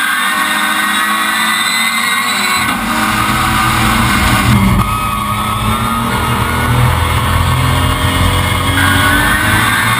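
Rallycross car's engine running hard under full throttle, its note climbing in pitch through the revs, with a heavy low rumble that comes in about three seconds in and runs under it.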